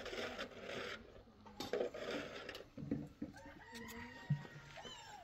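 A rooster crowing once, a long pitched call in the second half. Before it come two short hissing noises.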